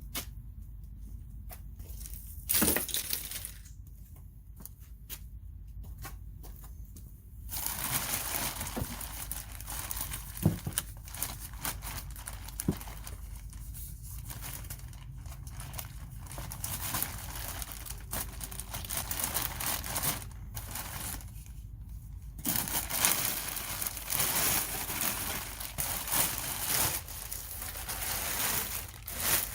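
Plastic wrapping crinkling and crumpling as it is pulled off and handled, in two long stretches beginning about a quarter of the way in, with a few knocks along the way.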